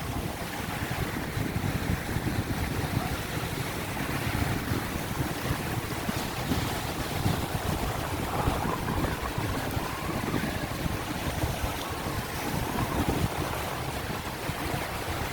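Wind buffeting the microphone over the steady wash of sea waves, rising and falling in gusts.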